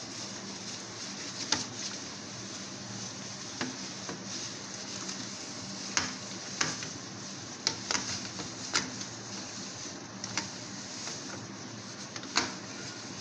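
A hand rubbing oil over a stainless steel tray: soft rubbing with scattered light clicks and knocks of the metal tray, over a steady faint hum.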